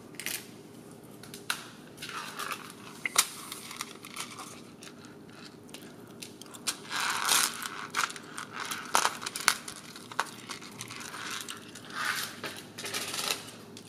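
Gloved hands handling small frame parts and hardware: irregular crinkling and rustling with scattered light clicks, busiest about halfway through and again near the end.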